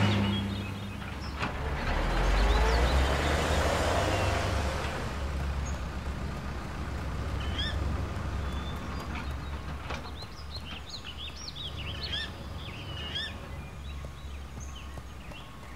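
A road vehicle drives past in the first few seconds, swelling and fading with a tyre hiss over a deep rumble. From about halfway through, small birds chirp in quick high twitters over a steady low traffic hum.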